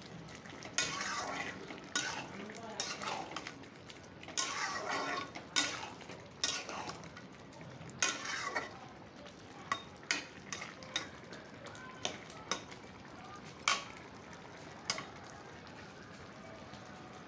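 Metal spatula scraping and clacking against a kadai while stirring a thick soya chunk curry, with the curry sizzling. The strokes stop about fifteen seconds in, leaving a faint steady sizzle from the simmering curry.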